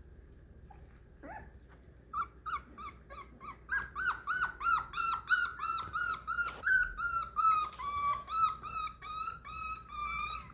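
Four-week-old Beagle puppy crying: a fast, even string of short high-pitched whines, about three a second, starting about two seconds in.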